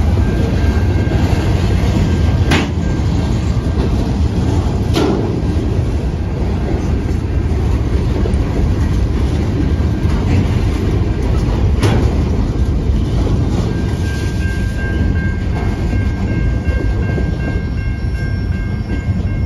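Freight train cars rolling past: a steady low rumble of steel wheels on rail, with a few sharp clanks a few seconds apart. A steady high ringing tone grows louder over the last few seconds.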